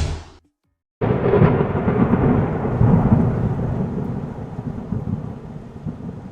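A short burst of noise cuts off. After about half a second of silence, a thunderstorm starts suddenly: a long rumble of thunder over steady rain, slowly fading.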